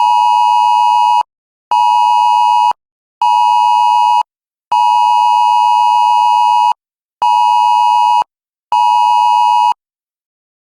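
An iPhone 8 sounding the Wireless Emergency Alert attention tone: a loud, harsh two-pitched tone in the standard long-short-short pattern, heard twice through. It is the sign that the phone has received an emergency alert, here a nationwide test.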